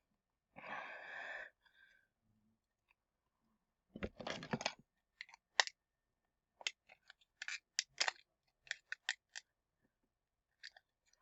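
Rustling and handling noise, then a run of sharp, irregular clicks and snaps from small parts being worked by hand during a toy repair.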